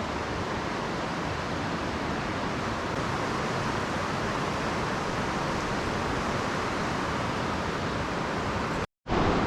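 Steady rush of creek water flowing over rocks, cutting out for a moment near the end.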